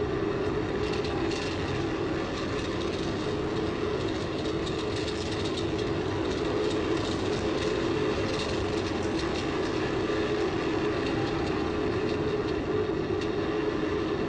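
Steady roar of air rushing past a Space Shuttle solid rocket booster as it falls back through the atmosphere, with a rattling clatter over it that is busiest between about one and nine seconds in.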